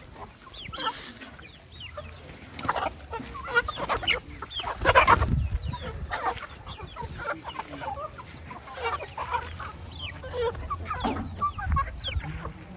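Free-range chickens clucking over leftover food scraps thrown to them, with many short calls throughout. About five seconds in there is a brief, louder burst of noise.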